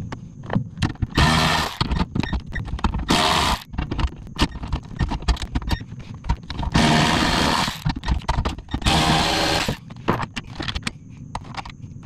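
Cordless ratchet undoing amplifier mounting bolts in four short runs of about half a second to a second each, with clicks and rattles of the socket and bolts in between.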